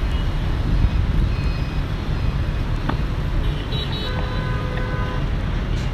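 Road traffic of motorbikes and cars passing, with a steady rumble of engine and road noise. A vehicle horn sounds for about a second around four seconds in.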